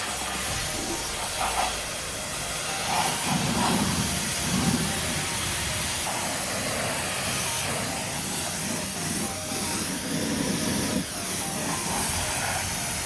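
Steady hiss of water spraying onto a car's bodywork during a wash.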